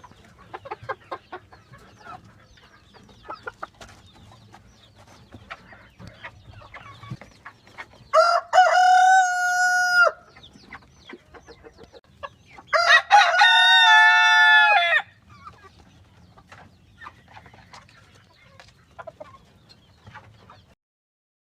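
Chickens clucking, with a rooster crowing twice, about 8 and 13 seconds in, each crow lasting about two seconds.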